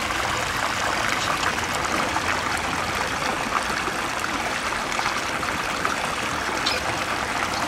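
Steady trickling and running water in a rock-lined pool, with a few faint clicks near the end.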